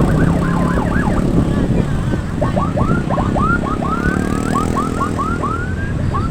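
Bus basuri horn playing a run of quick whistling chirps that sweep up and down in pitch, settling about halfway in into short rising sweeps about three a second, over a low steady rumble.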